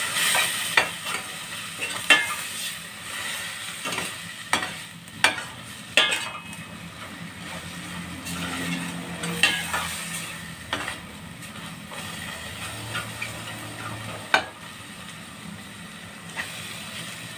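Sautéed alamang frying in a stainless steel pan while it is stirred: a steady sizzle with irregular scrapes and sharp knocks of the utensil against the pan, a second or a few seconds apart.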